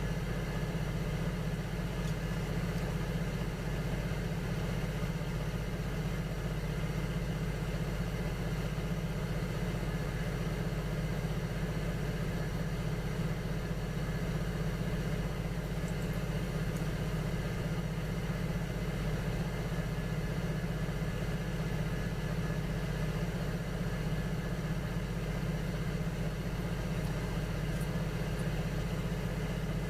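Electric potter's wheel motor running at a steady speed, an even mechanical hum made of several fixed tones.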